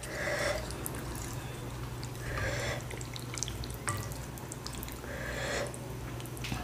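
Chopsticks and a wooden spoon stirring and lifting saucy noodles in a ceramic bowl: wet, sloppy noodle sounds with a few light clicks.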